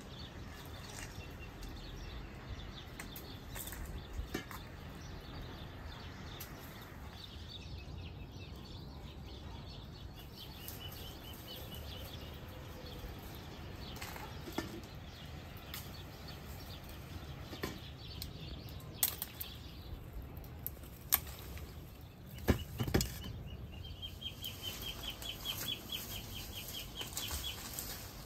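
Pomegranates being picked from a tree: leaves and branches rustle, with a few sharp snaps of twigs or fruit coming free. Birds chirp, and near the end one gives a quick trill of rapidly repeated notes.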